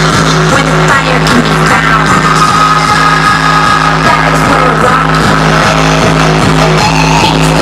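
Dance music played very loud over a sonidero sound system, with guitar, a steady heavy bass note and an even, driving beat.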